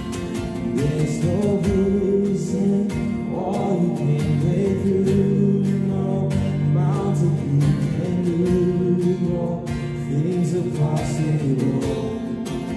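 Worship song: a man singing over a strummed acoustic guitar.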